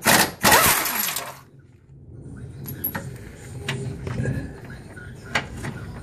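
Impact wrench hammering a 15 mm K-member brace bolt loose through a swivel socket for about a second and a half, then stopping. Light metallic clicks follow as the socket is fitted onto the next bolt.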